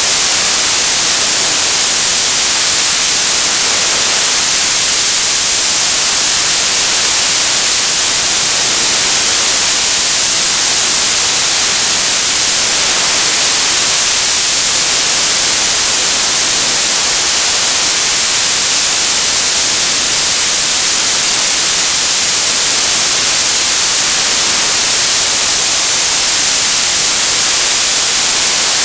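Television static: loud, steady white-noise hiss, brightest in the treble, with no changes.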